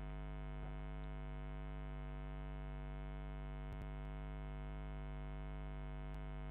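Steady electrical mains hum with a buzzy stack of overtones picked up by the recording microphone, with a few faint keyboard clicks.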